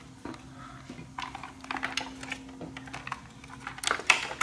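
Irregular light clicks and rattles of plastic parts and wiring connectors being handled as a motorcycle's plastic tail section with a new taillight is brought to its wiring harness, with a louder clatter near the end.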